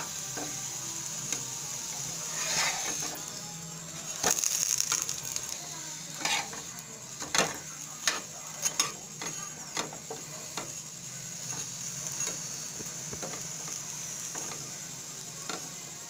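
A stuffed coconut paratha sizzling steadily as it shallow-fries in oil in a frying pan, with irregular scrapes and taps of a spatula against the pan as the paratha is pressed, lifted and turned; the busiest clatter comes about four seconds in.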